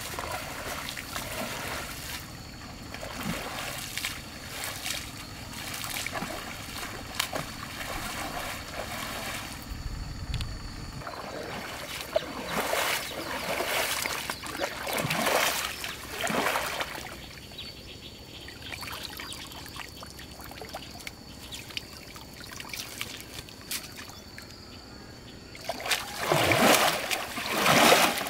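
Pond water sloshing and splashing as a person wades through it and pushes a bamboo-framed push net along, with irregular swells of splashing that are loudest near the end.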